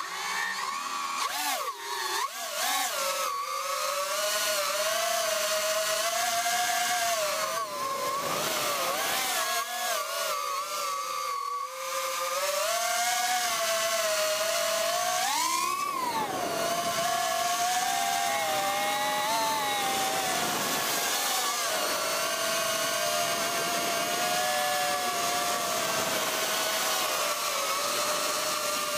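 Drone motors and propellers whining in flight, starting suddenly as it lifts off. The pitch wavers up and down with the throttle and jumps up sharply for a moment about halfway through.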